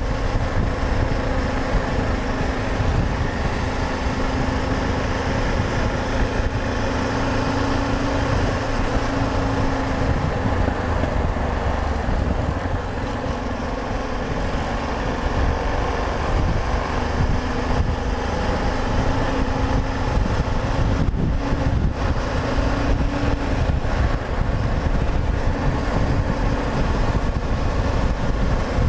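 Yamaha XT 660Z Ténéré's single-cylinder engine running while riding, its note wavering a little, over steady wind and road noise.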